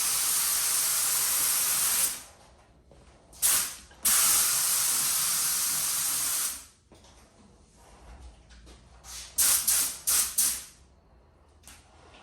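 Gravity-feed air spray gun spraying base coat: compressed air hisses steadily through the gun for about two seconds, then gives one short blast and a longer pass of about two and a half seconds. Near the end come several quick short bursts.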